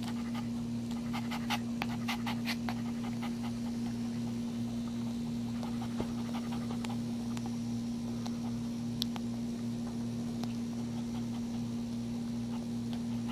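Mother dog panting steadily just after whelping, with a newborn puppy nursing at her belly. A steady low electrical hum runs underneath, and a quick run of soft clicks comes about a second in.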